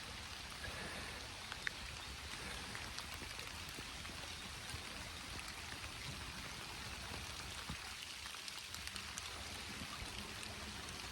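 A stream running steadily, with rain falling and scattered small raindrop ticks.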